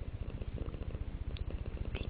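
Domestic cat purring steadily, a low, rapid, even pulsing.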